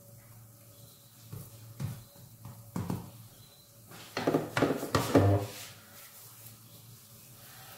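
Cooking utensil knocking and clattering around a non-stick frying pan of pancakes: a few light knocks in the first three seconds, then a louder clatter about four to five seconds in, over a faint steady hum.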